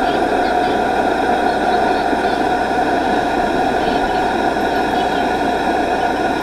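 Steady hiss and hum of a cooking burner under a pot of mushroom udon coming to the boil, with a constant tone running through it.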